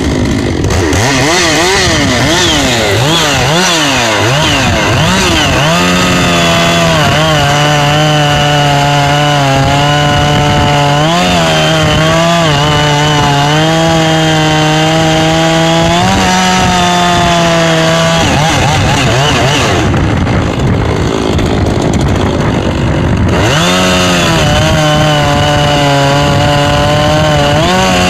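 Two-stroke chainsaw with a 24-inch bar and a new HIPA 3/8 .050 chain cutting into a solid chunk of red pine. The engine revs up and down for the first few seconds, then holds a steady, lower pitch under load in the cut, easing off briefly about twenty seconds in before settling back into the cut.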